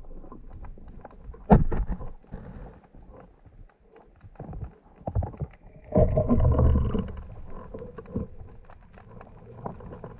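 Underwater handling noise from a speargun and its shooting line: scattered clicks and knocks as the gun and line are gripped and moved, with a sharp knock about a second and a half in and a louder low rush of water movement about six seconds in.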